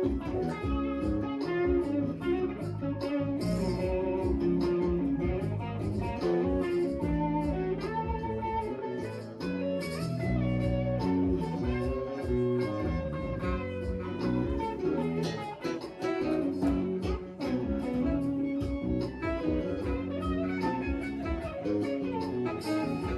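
Live band playing an instrumental passage: electric guitar over bass and keyboards, with a steady beat.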